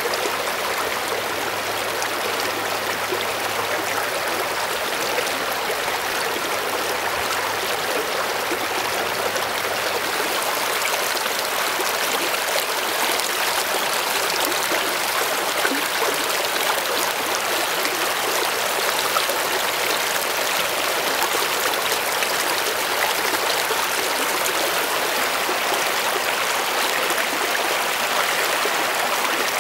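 Shallow creek water flowing and splashing over rocks and around a fallen log: a steady, unbroken rush, picked up by a camera's built-in microphone.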